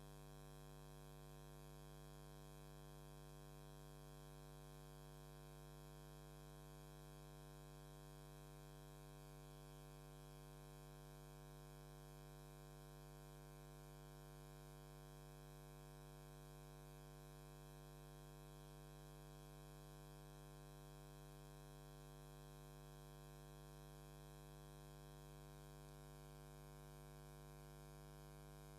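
Faint, steady hum with many overtones, unchanging throughout, over light hiss; no taps or strikes are heard.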